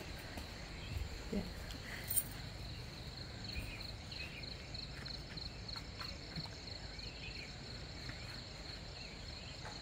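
Crickets trilling steadily, a fast-pulsing high trill, with a few faint softer chirps over it and a single short click about two seconds in.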